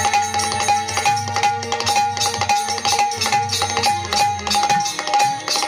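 Background music with percussion and a steady held note.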